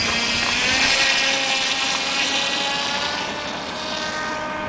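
Brushless electric motor and propeller of a scratch-built RC plane running at high throttle: a loud whine made of several tones over a rushing noise, its pitch drifting slowly lower as it gets a little quieter.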